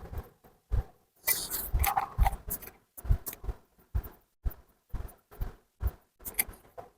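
Irregular clinks, taps and knocks of metal tools and engine parts being handled and set down during motorcycle engine work.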